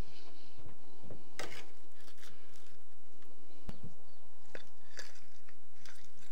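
Scattered light clicks and knocks of dishes and cutlery being handled as food is laid out on a table, over a steady low hum.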